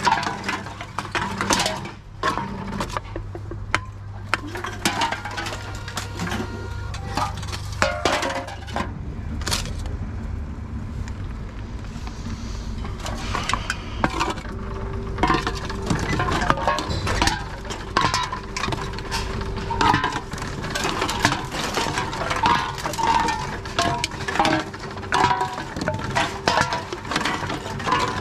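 Drink cans and plastic bottles clinking and clattering as they are picked from a crate and pushed one by one into a reverse vending machine's chute: a run of many short knocks and rattles over a steady hum.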